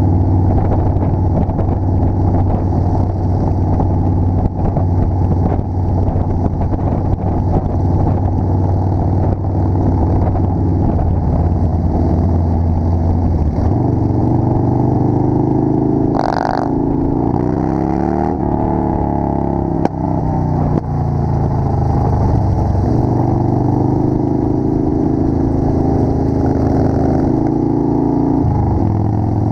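Motorcycle engine running at road speed with wind rushing over a helmet-mounted microphone. About halfway through, the engine note changes and glides up and down for a few seconds as the bike changes speed, then it settles back to a steady run.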